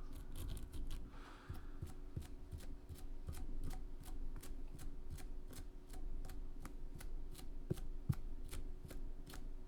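A dubbing comb brushing out the fibres of a tied fly: a quick run of short scratchy strokes, about three a second, fluffing out the dubbing and hot spot.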